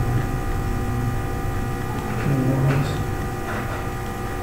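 Steady electrical mains hum on the recording, with several faint steady tones layered over it.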